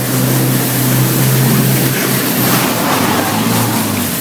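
Land Rover Defender 110 engine running steadily under load while wading through deep water, with water rushing and splashing against the vehicle.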